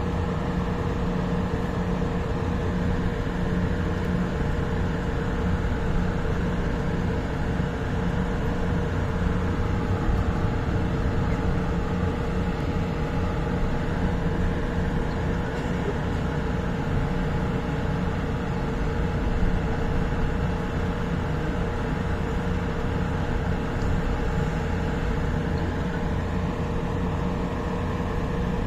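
Light rail train running steadily: an even rumble with a constant hum.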